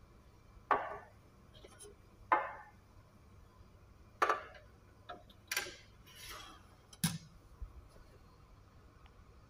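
Stainless steel calibration weights clinking as they are lifted off and set down on the pan of an electronic precision balance while its accuracy is checked against standard weights. About six sharp metallic clicks with short ringing, unevenly spaced.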